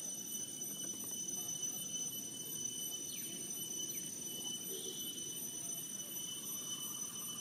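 Outdoor ambience dominated by a steady, high-pitched insect drone, with a low background rumble beneath it.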